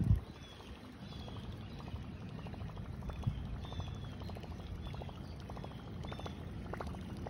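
Fishing reel being cranked on a steady lure retrieve, a run of fine ticks that grows denser near the end, over a low rumble of wind or handling on the microphone. There is a thump right at the start, and a short high chirp repeats through it.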